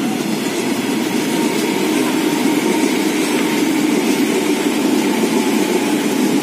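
Electric commuter train crossing a rail bridge: a steady rumble of wheels on the rails, with a faint steady whine.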